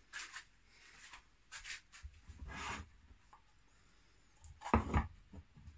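Wooden bandsaw-box pieces handled on a wooden workbench: several brief scraping rubs, then a louder double knock near the end as a piece is set down on the bench top.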